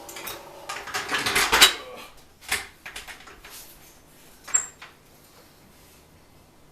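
Metal clanking and rattling from a jack being set under a truck to lift it: a cluster of clatter in the first two seconds, then two single sharp clinks, the last with a brief high ring.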